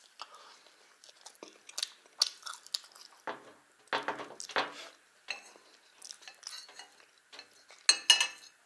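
Close-up eating sounds: a metal fork clinking and scraping on a ceramic plate while fried chicken is picked apart and chewed. The loudest clinks come in a quick cluster near the end.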